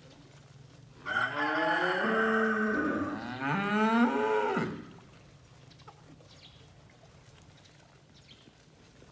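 Sheep bleating: one long call in two parts, the second part wavering, lasting about three and a half seconds.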